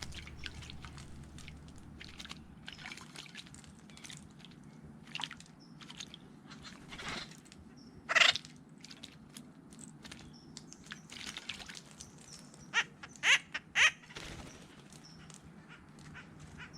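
Acorn woodpeckers splashing in a birdbath as they bathe, with short splashes throughout. Loud bird calls stand out, one about eight seconds in and three in quick succession near the end.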